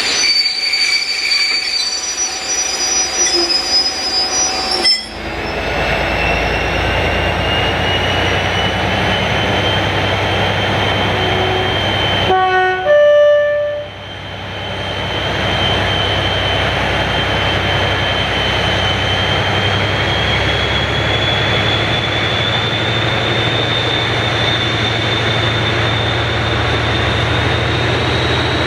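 Diesel locomotive train running, with a steady low engine rumble and a high whine. It sounds a two-tone horn, low note then high, about twelve seconds in.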